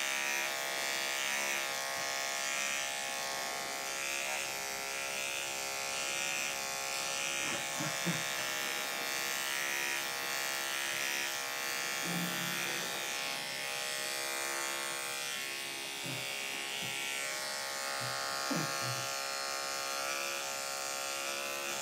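Electric dog-grooming clipper fitted with a skip-tooth blade, running with a steady buzzing hum as it shaves through a dog's heavily matted coat.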